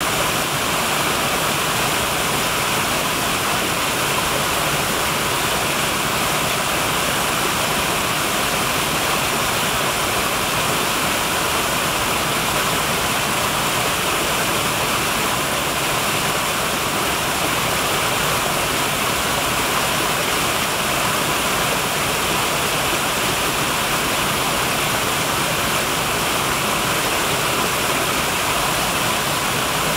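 Small woodland waterfall: several short cascades of a brook splashing over mossy rocks into a shallow pool, a steady even rush of water with no change in level.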